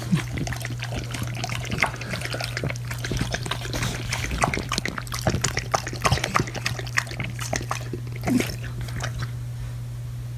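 A French bulldog lapping water from a stainless steel bowl: quick, wet, irregular laps that stop near the end, over a steady low hum.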